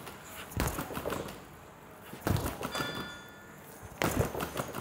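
Boxing gloves (Move It Swift smart gloves) punching a free-standing punching bag with a head target: three short flurries of thuds, roughly every one and a half to two seconds. A brief chime-like electronic tone sounds about three seconds in.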